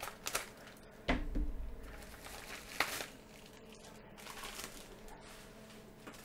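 A mailed package being unwrapped by hand: plastic packing crinkling and rustling, with a dull thump about a second in and a sharp click near three seconds.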